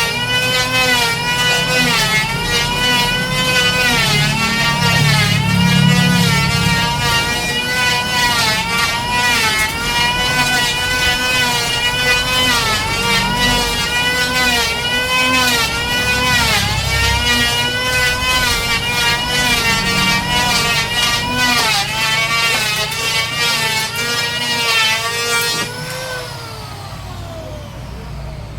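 Electric woodworking power tool running at high speed and cutting wood, its whine dipping in pitch again and again as the blade or cutter bites into the timber. Near the end it is switched off and its whine falls as it spins down.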